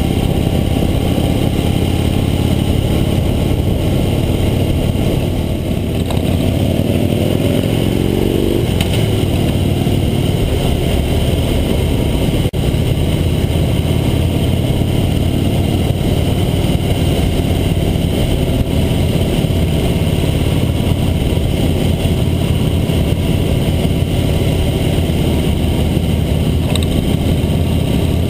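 Harley-Davidson V-twin motorcycle engine running at road speed, heard from a camera mounted on the bike, with steady wind rush. About six seconds in the engine note climbs for a couple of seconds as the bike accelerates, then falls back.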